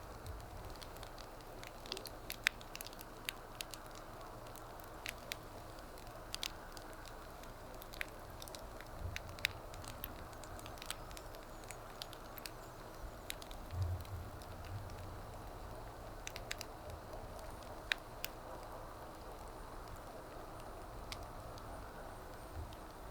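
Wood fire burning with a steady low hiss and irregular sharp crackles, with a few louder wood pops.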